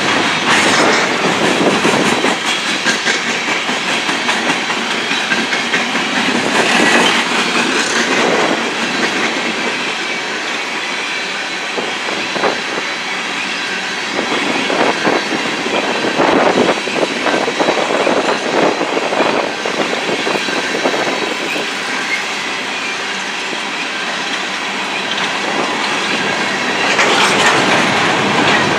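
Coal train's gondola cars rolling past: a steady rumble of steel wheels on rail with repeated clickety-clack over the rail joints, swelling louder a few times as trucks pass.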